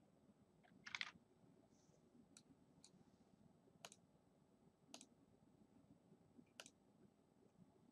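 Faint computer mouse clicks, about six spread over several seconds, the one about a second in the loudest, over near-silent room tone.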